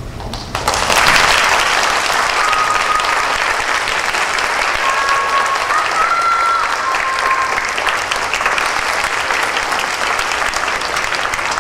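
Audience applause breaking out less than a second in, just after the music stops, and holding steady and loud. A few faint sustained high tones sound through it in the middle.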